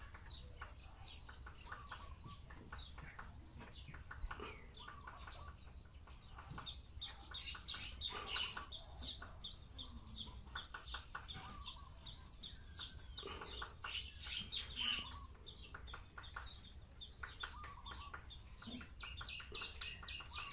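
Woodpecker hammering on a tree in several short, rapid runs of knocks, the densest run near the end, with small birds chirping.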